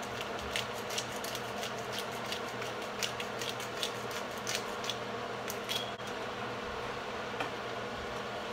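Diced chicken sizzling in a skillet on the stove, with scattered pops and crackles over a steady hum; the crackles thin out in the last couple of seconds.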